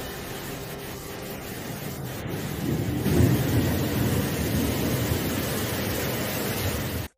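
Floodwater rushing down a street, a steady noisy rush that grows louder about three seconds in.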